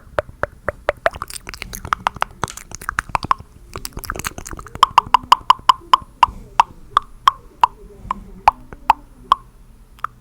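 Mouth pops and tongue clicks made close to the microphone: quick runs of sharp, hollow-sounding pops, several a second, with a short lull a few seconds in. The pitch of the pops shifts from low to higher as the mouth shape changes.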